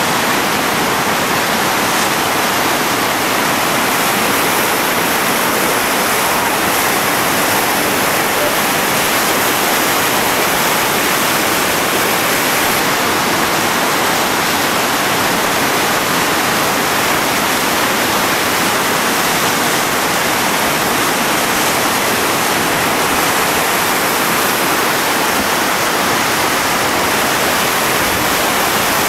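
Whitewater rapids on the Chattooga River rushing in a steady, unbroken wash of noise.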